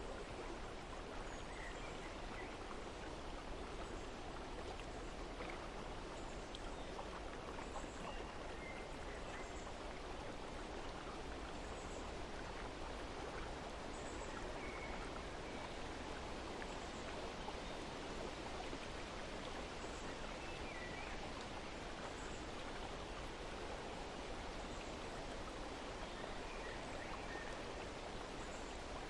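Steady rush of flowing water, with short faint bird chirps now and then.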